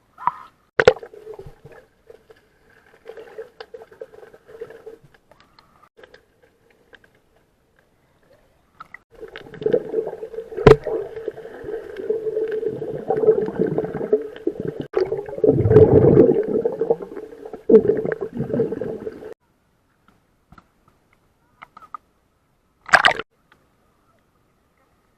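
Muffled sea water sloshing and gurgling around an Apeman A80 action camera in its waterproof housing, swelling and falling away in irregular bursts, with three sharp knocks on the case.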